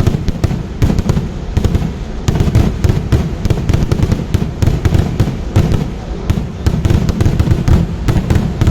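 Vedikettu fireworks barrage: a rapid, unbroken run of overlapping firecracker bangs, several a second, with a deep rumble under them.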